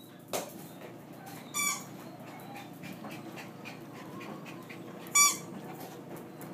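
Small dog giving short, sharp, high-pitched barks, twice, about a second and a half in and again about five seconds in.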